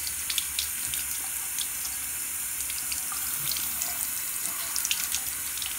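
Tap water running through a 1080-degree swivel faucet aerator and splashing into a small bathroom sink basin: a steady hiss with small scattered splashes.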